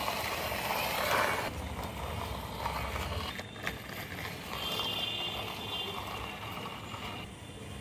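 Plastic wheels of a toy truck rolling and scraping along a rough concrete wall top as it is pushed by hand. The sound is loudest in the first second and a half, then fainter.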